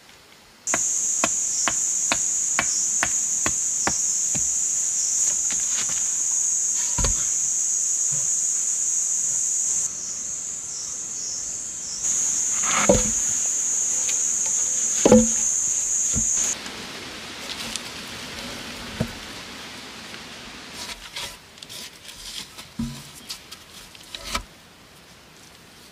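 Insects in the forest keep up a steady, high-pitched drone that stops about two-thirds of the way through. Over it come two loud knocks of wooden logs being set down, then lighter clicks and knocks of logs being handled.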